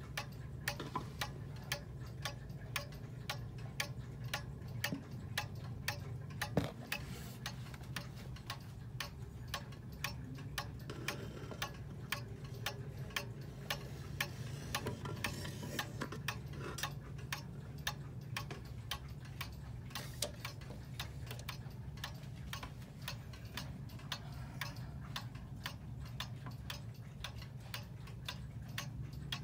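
Antique Girod art deco wall clock's mechanical pendulum movement ticking steadily.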